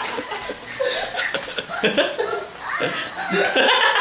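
Several people laughing and giggling, with snatches of talk in between.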